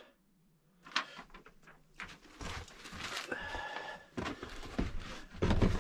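Rustling of a fabric seat cover being handled and pulled over a bucket seat's backrest, starting about a second in, with a brief squeak partway through.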